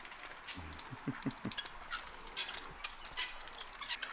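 Domestic ducks dabbling in wet mud for grain, making quick, irregular wet clicks and slurps with their bills. A few soft, low sounds come about a second in.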